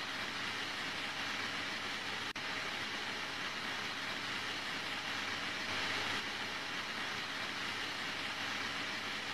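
Steady, even hiss of background noise with a faint hum under it, briefly cutting out a little over two seconds in.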